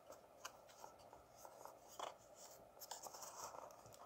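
Faint rubbing and light scraping of a paperboard box as its flaps are worked open by hand, with a slightly louder scrape about two seconds in.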